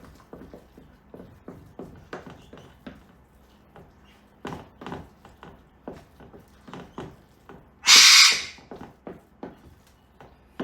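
A loud, harsh screech from an eclectus parrot about eight seconds in, lasting about half a second, over light clicks and knocks of utensils working in a mixing bowl.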